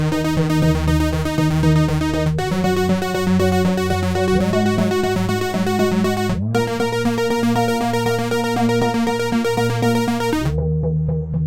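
Electronic background music: a synthesizer track with a steady fast pulse and sustained chords that change about every four seconds.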